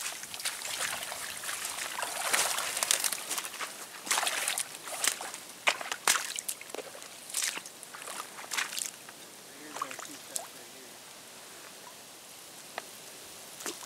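Shallow water sloshing and trickling in irregular splashes, thinning out after about nine seconds.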